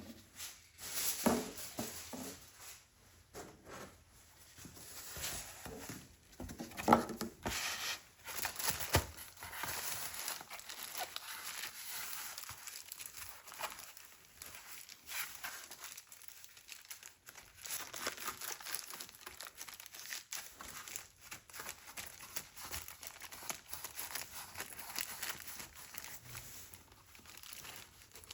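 Hand work on a Stihl chainsaw guide bar: a few knocks and scrapes in the first several seconds, then steady, scratchy rubbing.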